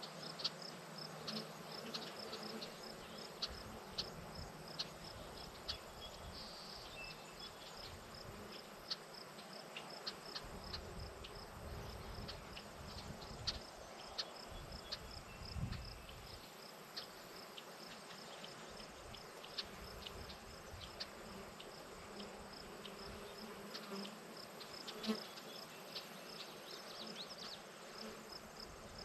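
Field insects: a high chirp repeating evenly about three times a second over a faint steady hiss, with scattered short ticks. A low rumble rises for a few seconds around the middle.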